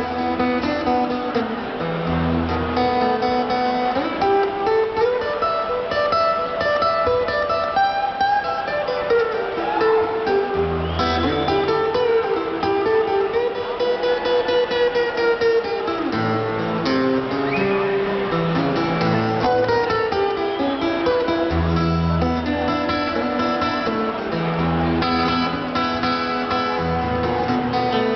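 Acoustic guitar playing a slow blues, low bass notes under picked melody lines with a few bent notes, heard live through a concert hall's PA.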